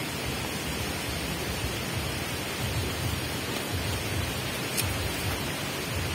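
Steady rushing of wind through young oil palm fronds, with an uneven low rumble of wind on the microphone.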